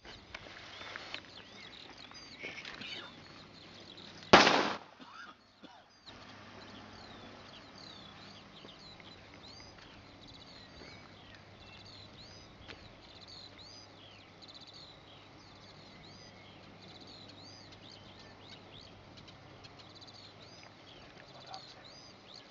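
A DA 25 smoke grenade going off with one sharp, loud burst lasting about half a second, some four seconds in, as its smoke charge lights. Birds chirp throughout.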